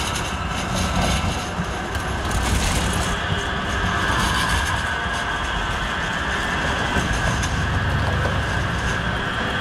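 MAX light-rail train rolling past close by on street track: a steady rumble of wheels and traction motors on the rails as the cars go by.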